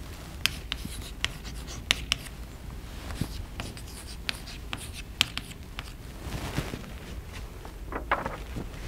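Chalk writing on a blackboard: a quick run of sharp taps and short scratching strokes as an equation is written. Near the end the writing stops and a few footsteps follow.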